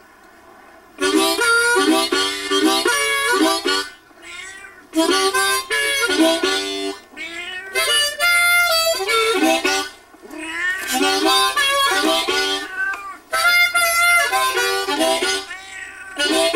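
Harmonica played in short bluesy phrases, with a cat meowing along to it. The harmonica comes in about a second in and stops briefly several times.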